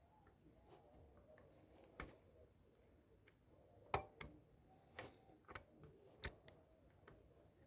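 Faint, irregular clicks and taps from hard small objects being handled on a workbench, likely tools and the TV's circuit board being worked on. The sharpest tap comes about four seconds in, and a cluster of lighter clicks follows over the next few seconds.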